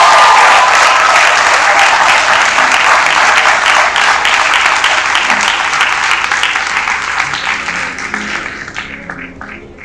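Audience applauding, with a few cheers at the start; the clapping thins out and fades away near the end.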